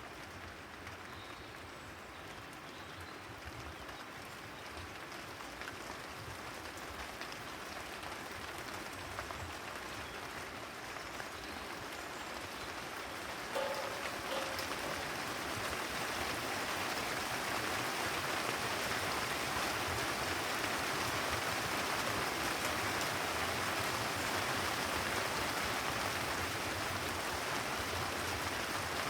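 Rain falling on a terrace, an even hiss that grows steadily heavier. About halfway through there is a brief pitched sound.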